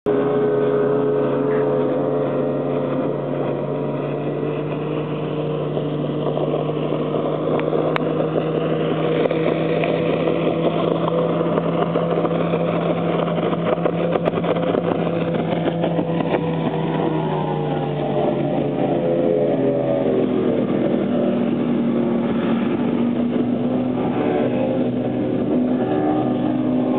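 Yamaha 200 VMAX two-stroke V6 outboard pushing a bass boat at high speed, a steady engine drone. Its pitch shifts and drops about two-thirds of the way through.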